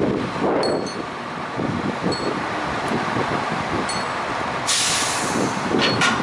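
Crane truck engine running steadily, with a couple of light metallic clinks and a loud hiss of air lasting just over a second, starting about four and a half seconds in.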